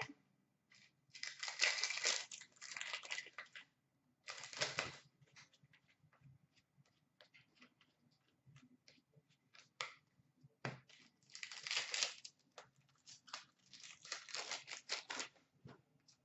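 Hockey card pack wrappers being torn open and crinkled in several quiet bursts, with light clicks and rustles of cards being handled and flipped between them.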